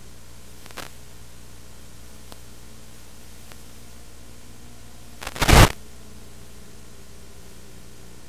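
Steady static hiss with a few faint clicks, broken by one short, loud burst of crackling noise about five and a half seconds in.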